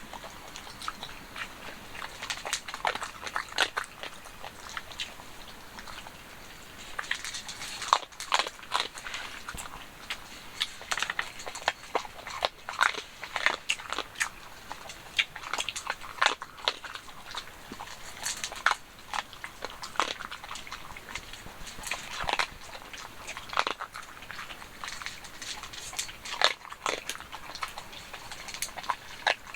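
A dog chewing and crunching on something hard, a run of irregular crunches with a short lull about five seconds in.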